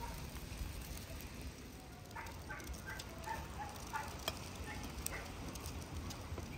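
Mixed seafood of octopus, mussels and shrimp sizzling faintly in a frying pan. From about two seconds in, birds chirp in short calls, and a couple of sharp clicks come as butter is cut from the block with a cleaver.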